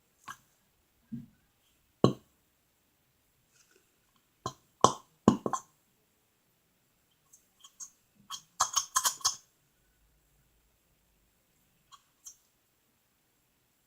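Scattered light clicks and small knocks of a plastic glue bottle and cup being handled on a table, with a quick run of clicks about two-thirds of the way in and long quiet gaps between.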